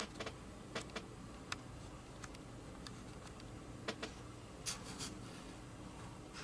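Faint, scattered clicks and light taps of small objects being handled, at irregular moments over a steady low room hum.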